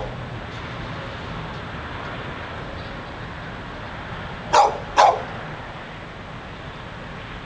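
A dog barking twice in quick succession about halfway through, over steady background noise.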